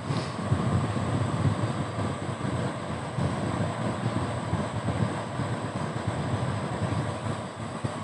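Car driving on an unpaved gravel road, heard from inside: an uneven low rumble and rattle of the tyres and body jolting over the rough dirt surface.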